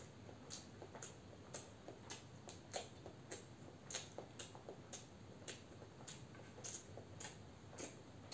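Person chewing a mouthful of boiled egg with soft, wet mouth clicks, a little under two a second in a slightly uneven rhythm.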